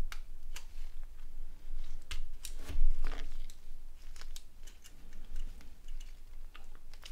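Small clicks and taps of a Nokia 6290's plastic and metal parts being handled and pried apart during disassembly, with one dull thump about three seconds in.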